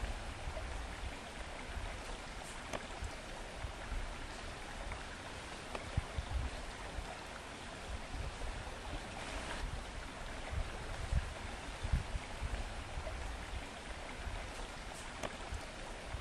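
A stream running steadily, with irregular low rumbling bumps of wind on the microphone.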